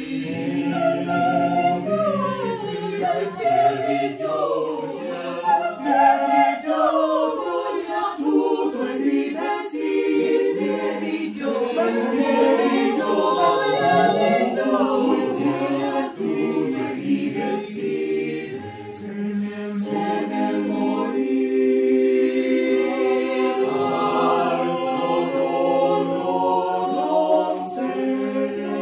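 Mixed-voice choir of men and women singing a cappella in several parts, the voice lines moving up and down together, briefly softer about two-thirds of the way through.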